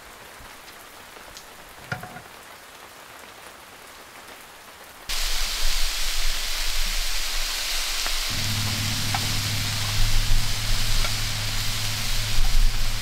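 Diced meat sizzling in a frying pan on a portable butane camp stove: a loud, even hiss that starts suddenly about five seconds in, after a quiet stretch with one faint click. A steady low hum joins about three seconds later.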